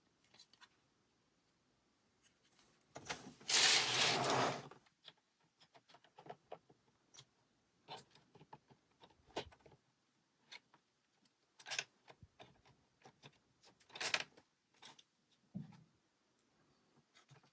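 LEGO pieces being handled and pressed together: scattered sharp plastic clicks and taps, with a louder rustling rummage about three seconds in that lasts over a second.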